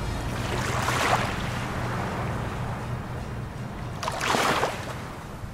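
Small waves breaking and washing up on a sandy shore in two surges, about a second in and about four seconds in.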